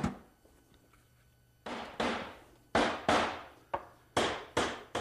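Hammer blows on the wooden parts of a glued-up box being assembled: one sharp knock, a pause of over a second, then about seven more knocks in quick, uneven succession, each ringing briefly.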